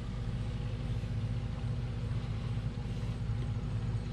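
Steady low mechanical hum, unchanging in pitch and level.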